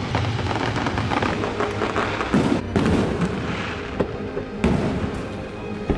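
Fireworks display: a dense crackling of bursting shells, with several sharp booms over the seconds.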